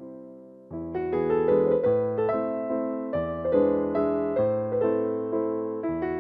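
Background music: solo piano playing a gentle melody. A held chord fades away, then just under a second in a busier passage of single notes begins.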